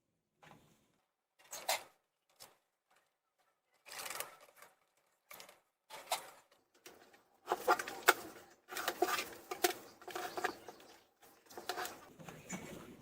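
Irregular clicks, taps and scraping from hands working on an opened laptop's plastic case and internal parts. The sounds grow busier and louder over the second half.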